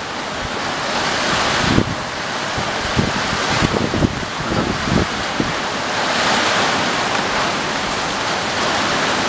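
Strong cyclone wind gusting through the tree's foliage, a rush of noise that swells and eases, with wind buffeting the microphone in several low thumps.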